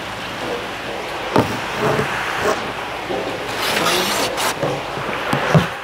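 Heavy rain pouring down onto a flooded street, with a sharp knock about a second and a half in and another, louder one near the end.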